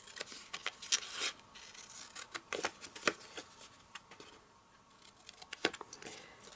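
Scissors snipping through card stock: irregular runs of short, sharp snips with paper rustling between them.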